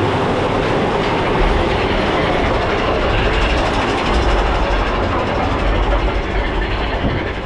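Mine train roller coaster running along its track: a steady rattle and rumble of the cars' wheels on the rails. The low rumble grows heavier about a second and a half in.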